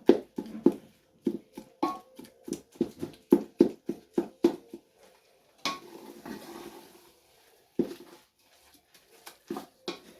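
Cooked cowpea greens being pounded and mashed in a pot, short dull thuds at about three a second, to soften them. The pounding pauses for a brief scraping stir, and a few more thuds come near the end.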